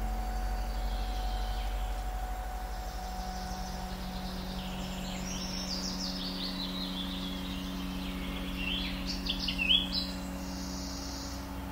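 Fantasy ambience with a steady low drone of sustained tones, overlaid from about five seconds in by a run of quick, high chirping bird calls that turn into a few sharp calls near the end.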